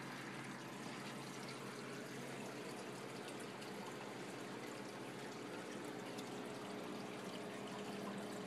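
Water trickling and splashing steadily as it circulates through a saltwater reef aquarium, with a low steady hum underneath.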